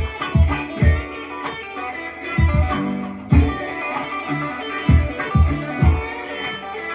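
Electric guitar played in a funky chicken-pickin' style, quick picked notes over a backing beat of deep thumps and sharp ticks.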